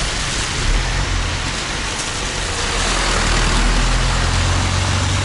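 Minibus engine running low and steady as the bus drives past, with the hiss of tyres on a wet road.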